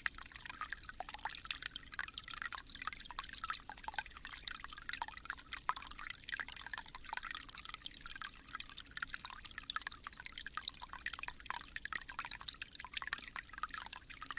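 Shallow stream running over its bed, a steady babble made of many small splashes and drips.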